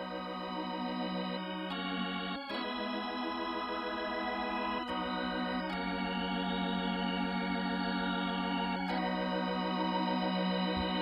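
Keyboard playing sustained organ-style chords over a steady held low note, the chord changing about five times.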